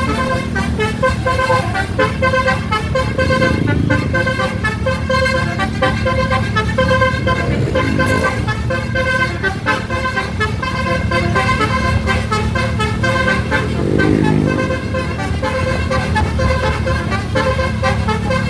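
Telolet horn, a set of musical air horns like those on Indonesian buses, playing a fast repeating multi-note tune in short pulses over the steady rumble of the engine.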